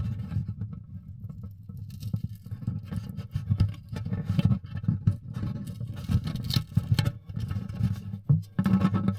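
Irregular light taps, clicks and scrabbling of hands working on a Taylor GS Mini acoustic guitar's wooden body during a pickup install, with a low boomy resonance under them.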